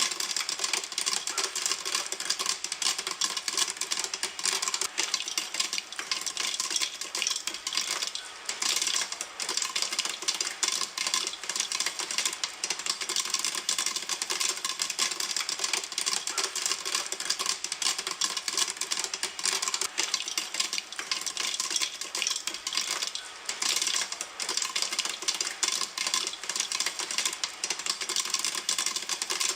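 Popcorn popping in a pan: a dense, rapid stream of sharp pops overlapping one another without a pause.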